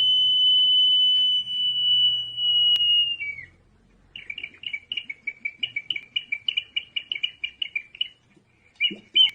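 Inca ceramic whistle jar sounding a long, steady high whistle that dips in pitch and cuts off about three seconds in. After a short pause it gives a rapid warbling, bird-like twitter of several notes a second, with a low knock near the end.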